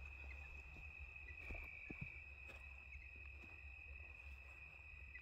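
Near silence, with a faint steady high-pitched tone and a few faint ticks.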